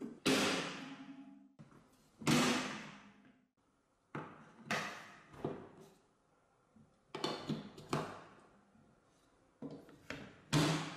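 Wooden marble-run pillars and track pieces being set down on a wooden table and pushed into green plastic holders: a string of about ten sharp wooden knocks and clacks, each ringing on briefly. The loudest come near the start, about two seconds in and near the end.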